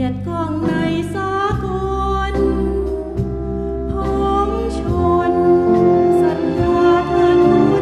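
Closing music: a melody line that wavers in pitch over steady held low notes.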